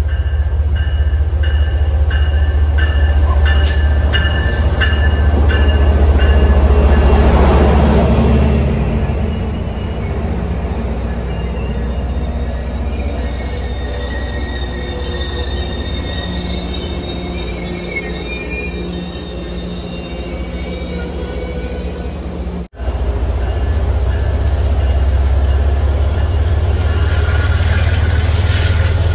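MBTA commuter train with a diesel locomotive pulling into the station and passing close: a heavy engine rumble, loudest about seven seconds in as the locomotive goes by, then the bilevel coaches rolling past with thin high wheel and brake squeals as the train slows. Near the end the sound cuts off sharply for an instant and the train's low rumble resumes.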